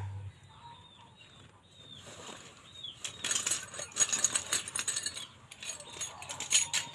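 Rapid metallic clinking and rattling, as of metal tools or small metal parts being handled, building from about two seconds in and loudest from about three seconds on.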